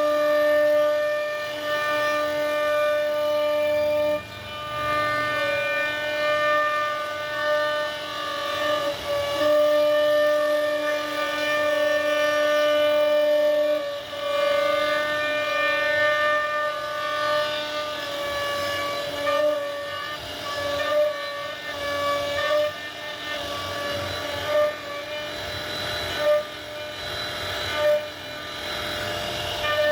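CNC router spindle whining steadily while carving wood, its pitch and level wavering as the cutting load changes.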